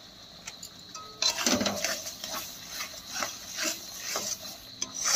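A metal spatula scraping and stirring thick masala paste in a blackened kadai. After about a second of near quiet, the scrapes repeat two or three times a second.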